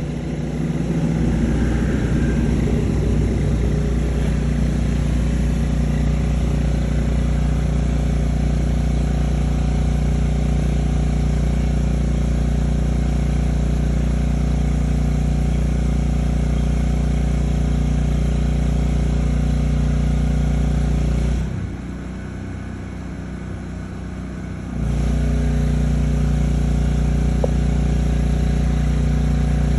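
A steady mechanical hum like an idling engine. It drops out abruptly for about three seconds some twenty seconds in, then comes back unchanged.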